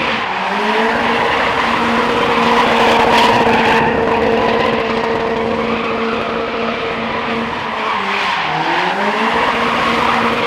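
Turbocharged Mazda Miata four-cylinder held at high revs as the car spins donuts, with tires squealing and skidding. The revs drop briefly and climb again near the end. The engine has terribly low compression yet keeps on going.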